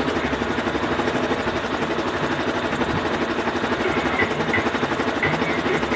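Yamaha Fazer 250's single-cylinder four-stroke engine idling steadily, with a fast, even pulse. It is running through an add-on Servitec fuel controller left on the stock fuel map, all zero.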